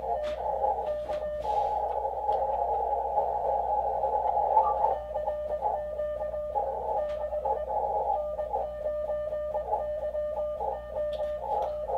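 Morse code (CW) from an Elecraft KX2 transceiver's speaker: a mid-pitched tone keyed on and off in dots and dashes over band noise. For a few seconds near the start, a denser rush of noise and overlapping signals fills the same pitch range.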